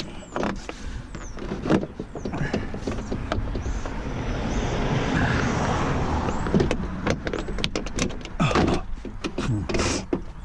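A truck's interior door trim panel being worked back onto the door: plastic scraping and rubbing, with many sharp clicks and knocks as it is pushed over the door and its clips are pressed in.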